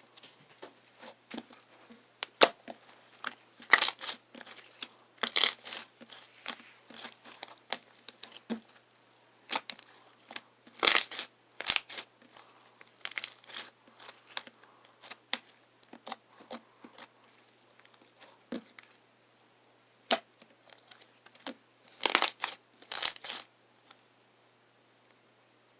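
Slime being squeezed, poked and stretched by hand, giving irregular sticky crackles and pops, with a few louder clusters. It goes quiet near the end.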